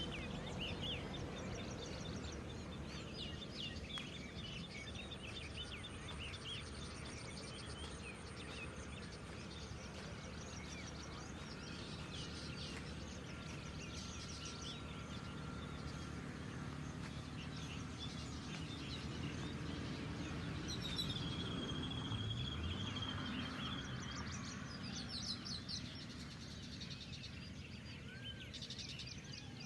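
Several birds chirping and calling over a steady low background rumble, with one long level whistle about two-thirds of the way through.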